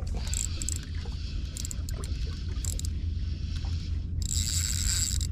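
Small boat on the sea: a steady low rumble with bursts of water and wind hiss, the loudest near the end.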